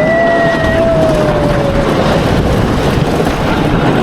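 Wooden roller coaster train running along its track, with loud steady rumble and rushing wind. A long held tone that slowly falls in pitch fades out about two seconds in.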